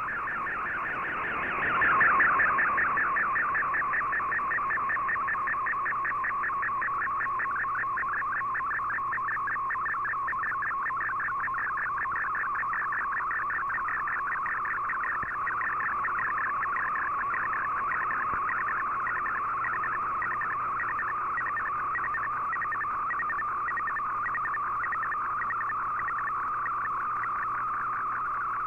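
Shortwave digital image transmission (MFSK picture mode) heard through the receiver's speaker: a dense, rapidly warbling tone signal with an even, fast line-by-line rhythm, swelling louder about two seconds in and then holding steady. It is the picture data that Fldigi is drawing as an owl image.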